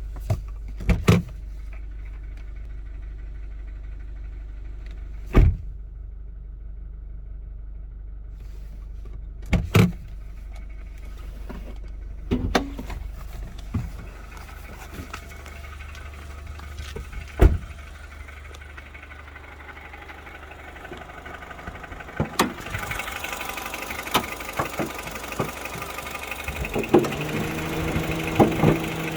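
Honda Civic FD2's K20Z2 four-cylinder engine running with a steady low hum, broken every few seconds by sharp irregular clicks. This is the ticking noise whose source the owner could not find. Near the end a second steady hum comes in and the sound gets louder.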